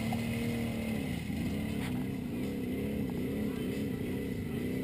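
A vehicle's engine running at a steady pitch, then revved up and down in a string of quick throttle blips, about two or three a second, from about two seconds in.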